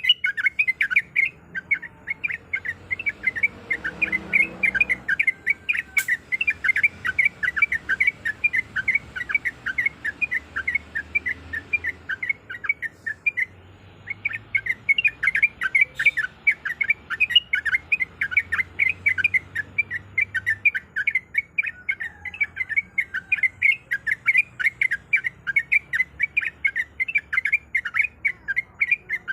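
Yellow-vented bulbul (trucuk) singing a fast, unbroken run of chattering chirps, with a short pause about halfway through.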